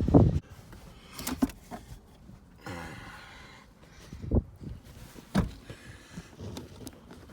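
A loud, dull thump, then a few scattered knocks and clicks of objects being handled and set down.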